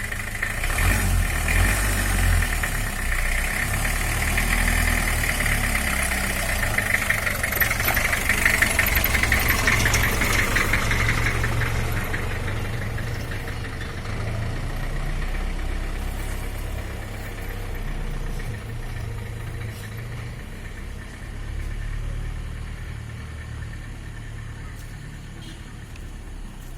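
Mahindra MM 550 jeep's engine running, louder for about the first twelve seconds, then settling to a quieter, steady idle.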